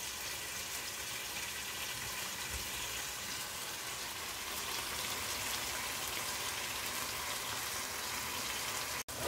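Onion-tomato masala with a little water sizzling steadily in a frying pan on the stove, an even fine crackle, as the spices cook down and start releasing oil. The sound breaks off for a moment near the end.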